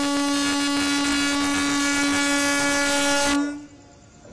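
Electric locomotive's horn sounding one long, steady blast as the train approaches, cutting off about three and a half seconds in.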